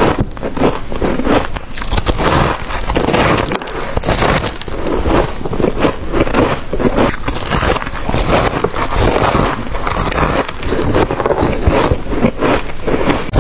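Crunching and crackling of soft, packed freezer frost being bitten into and chewed, close to the microphone. The crunches come thick and irregular, without a break.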